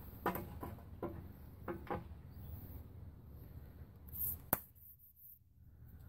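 Light clinks and knocks of a pedal tractor's steel drive axle and roller chain being worked into its frame: a handful in the first two seconds, a brief rustle just after four seconds, then one sharp click.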